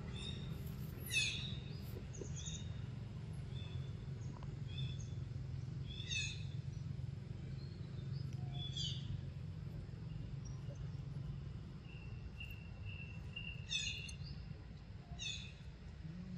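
Birds calling in the trees: several quick, high, downward-sweeping calls a few seconds apart and scattered short high chirps, over a steady low background hum.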